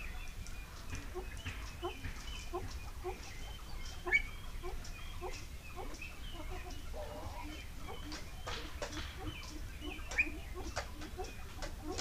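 Soft, low clucking from fowl in a pheasant aviary, short notes about two a second throughout, with small birds chirping higher over it. Two sharper, louder calls stand out, about four seconds in and again near ten seconds, among scattered light clicks.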